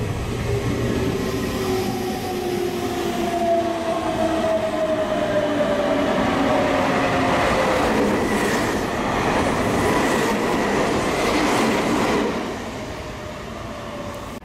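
Meitetsu 2200-series electric express train passing through a station at speed without stopping. Its drive whine slowly falls in pitch as it nears, then a loud rush with wheels clattering over the rail joints as the cars go by, dropping off about twelve seconds in.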